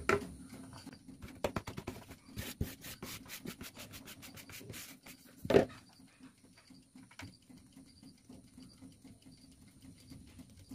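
Flour being sifted through a plastic mesh sieve that is shaken and tapped over a bowl: a run of quick rubbing taps, one louder knock about five and a half seconds in, then fainter ticking.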